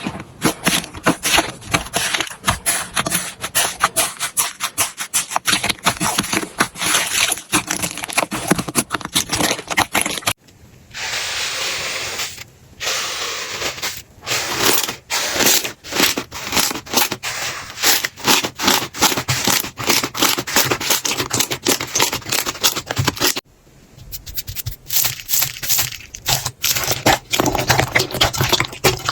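Slime being squeezed and pressed by hand, giving rapid crackling and popping clicks. The clips change abruptly twice, and a short, steadier squishing stretch follows the first change.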